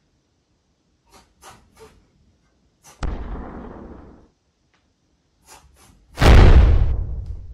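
Two sudden booms, each starting at full strength and dying away over about a second, the second louder and about three seconds after the first: dramatic boom sound effects. A few faint short clicks come before them.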